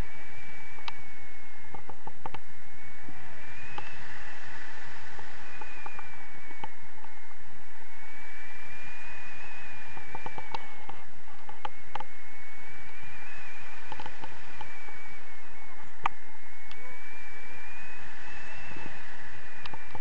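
Wind rushing over the camera microphone in flight aboard a tandem paraglider, with a thin whistling tone that slowly rises and falls every few seconds and a few small clicks.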